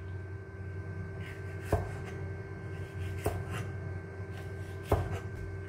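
Japanese kitchen knife chopping vegetables and peppers on a cutting board, with a few separate knocks about a second and a half apart over a steady low hum.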